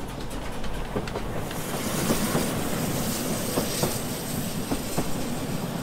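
Narrow-gauge steam train rolling slowly past, its wheels knocking irregularly over the rail joints. A steady hiss comes up about a second and a half in.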